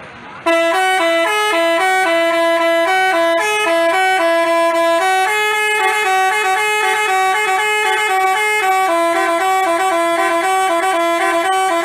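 Bus 'telolet basuri' musical horn playing a quick melody of short, switching notes, starting about half a second in.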